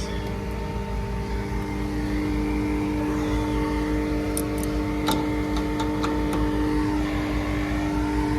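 Refrigerant recovery machine running steadily as it pulls R-410A out of a failed heat pump: an even motor-and-compressor hum, with a few light clicks about five seconds in.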